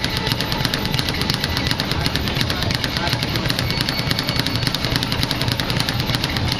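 Speed bag being punched nonstop, the bag rattling against its rebound board in a fast, even stream of many hits a second.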